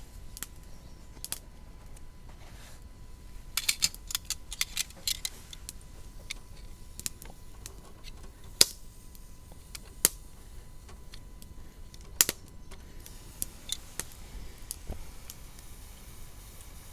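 Sharp clicks and clinks of small hard objects being handled: a quick run of them about four seconds in, then a few single louder knocks.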